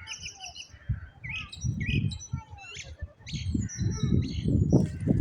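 Common blackbird singing, a run of high chirps and whistled notes, over a low rumbling noise that grows louder from about a second and a half in.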